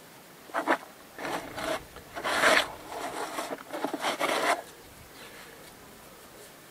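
Grit and muck being scraped out of a gap at the base of a stone wall, in about five rough scraping strokes, the loudest about halfway through.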